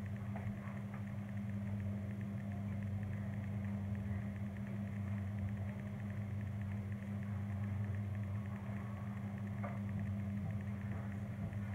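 Steady low mechanical hum running unchanged, with a faint click about ten seconds in.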